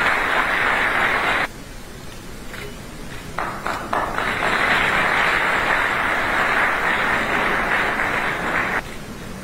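Audience applause in a hall, twice: a burst that stops about a second and a half in, then a few scattered claps that swell into a second long round of applause that ends shortly before the close.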